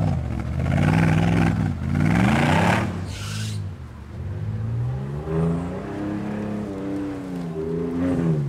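Straight-piped Mercedes-Benz G500 4x4² V8 revving in repeated surges, the pitch rising and falling each time. Three loud surges come in the first three seconds, then several softer, quicker ones.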